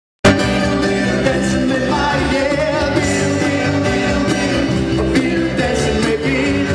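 Live pop-rock band playing electric bass, acoustic guitar and hand percussion, with lead vocals. It cuts in abruptly a moment after the start and then runs on at a steady, loud level.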